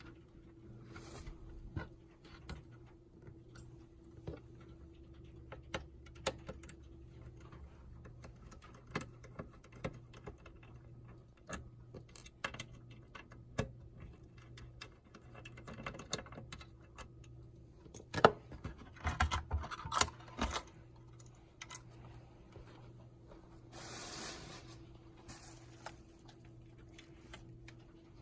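Scattered small clicks, taps and knocks of hands handling the hardware and parts of a POS terminal being taken apart, over a faint steady hum. There is a busier run of clicks about two-thirds of the way through, then a brief rustle.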